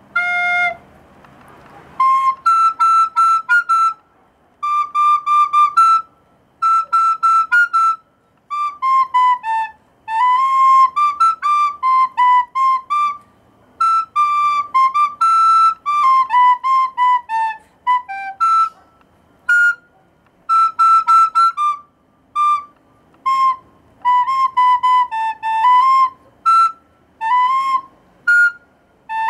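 Soprano recorder played solo: a melody in short phrases of quick, tongued notes, many repeated on the same pitch, with brief breaks for breath between phrases.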